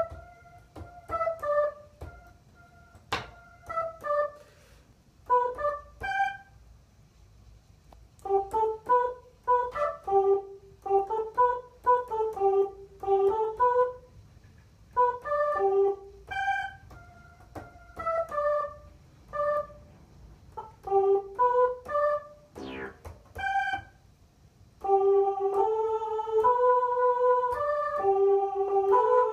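Electronic keyboard being tested through its samples: short piano-like notes played in brief phrases with pauses between them. A falling pitch sweep comes about 22 seconds in, and near the end a continuous run of notes begins.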